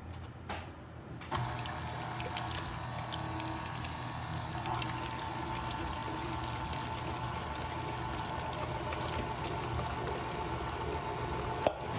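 Electric mixer switched on about a second in and running steadily, beating a wet mix of yeast, butter and eggs, with a liquid sloshing sound; it stops just before the end.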